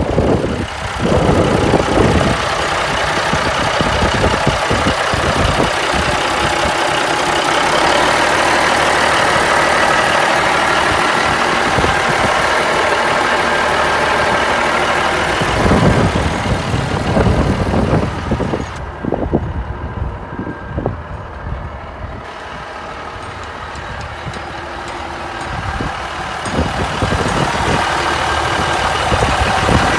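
A 1989 Ford L9000 truck's Caterpillar diesel engine idling steadily with the hood tilted open.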